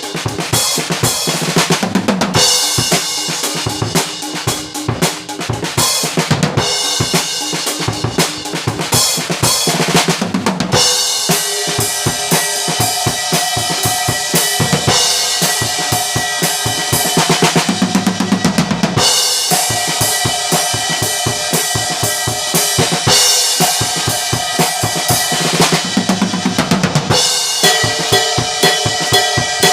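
A drum kit with Arborea Hero cymbals played continuously: a steady groove of bass drum, snare and cymbal strikes, with cymbals ringing over the beat.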